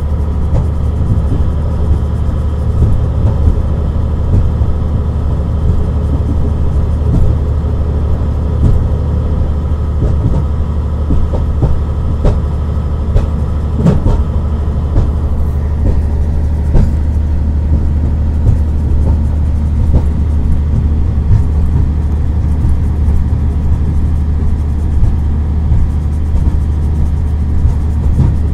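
Train running along the track, heard from the cab: a steady low drone and rumble from the locomotive and the wheels on the rails, with a faint whine that fades out about halfway through. A few sharp knocks from the track come through around the middle.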